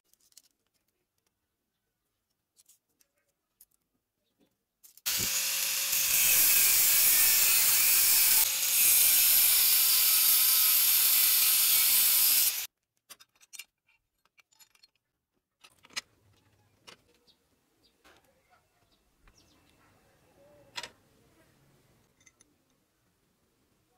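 Angle grinder with a cut-off disc spinning up about five seconds in and cutting through steel rebar clamped in a vise: a loud, steady grinding that stops suddenly after about seven seconds. Faint clicks of handling the metal follow.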